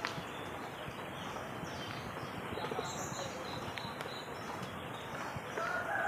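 A rooster starts crowing near the end, over a steady background hiss.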